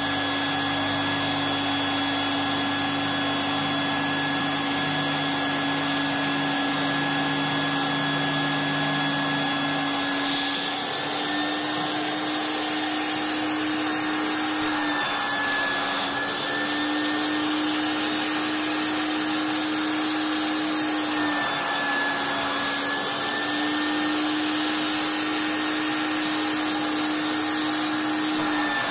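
Upholstery spray-extraction cleaner's vacuum motor running steadily as its hand-tool nozzle is worked over a fabric chair seat. The pitch steps slightly up and down several times in the second half, and a lower hum underneath stops about ten seconds in.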